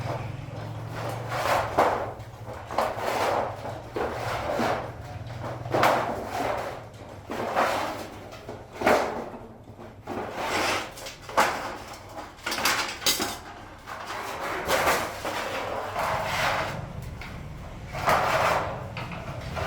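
Irregular series of short scraping and knocking workshop noises, roughly one a second, from hand work during kettle making, over a steady low hum that fades out early on and returns near the end.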